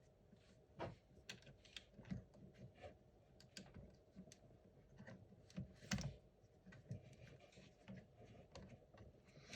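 Faint, irregular small clicks and taps of laptop parts being handled: the hard-drive bracket and its small screws being fitted into the laptop chassis. Two louder clicks stand out, about a second in and around six seconds.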